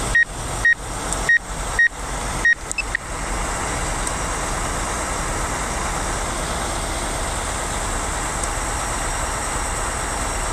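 About six short, high electronic beeps, roughly half a second apart, in the first three seconds, then the steady running of a heavy tow truck's diesel engine while the lifted truck is lowered.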